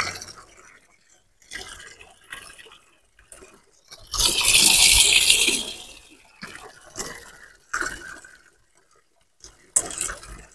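A stream of water from a solar submersible pump's outlet pipe pouring and splashing into a water-filled basin: the pump running and delivering water. The splashing comes and goes in bursts and is loudest for about two seconds in the middle.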